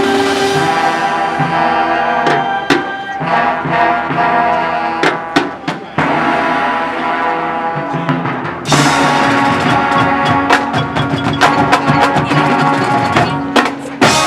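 Marching band playing, with wind instruments holding chords over sharp drum and percussion hits. About nine seconds in, the full band comes in louder.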